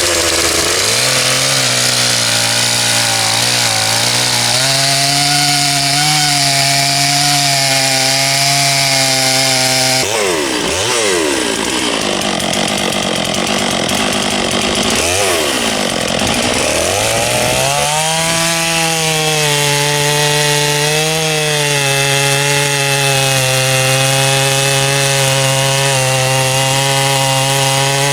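Large chainsaw running at full throttle, cutting through a big log with a steady high engine note under load. Partway through, the engine pitch sags and swings down and up a few times, then settles back to a steady cutting note.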